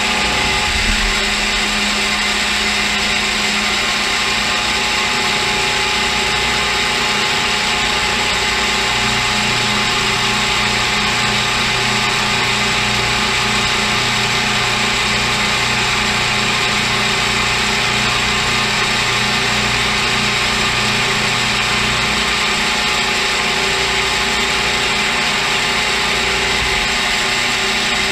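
CNC milling machine running a cut: the spindle whines steadily while the end mill cuts the metal block on an adaptive clearing toolpath, giving a continuous loud cutting noise.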